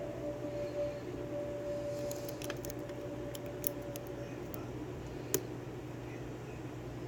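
Light metallic clicks and scrapes of a lock pick and tension wrench working the pin stack of a Yale 5-pin rim cylinder, with two sharper clicks a little past halfway, over a steady low hum.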